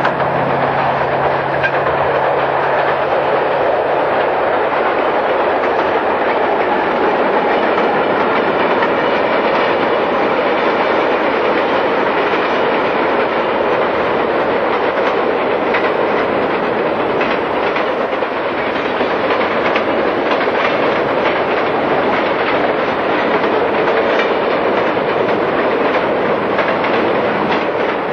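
Freight train rolling past, a steady rush of wheels on rail with clicking over the rail joints and a low steady hum from the locomotives during the first few seconds.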